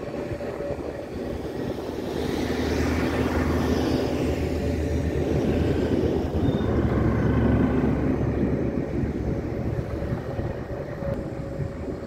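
Jet engines of a JetSMART Airbus A321neo airliner rolling along the runway: a broad rumble with a steady engine tone that swells as the aircraft passes and then eases off.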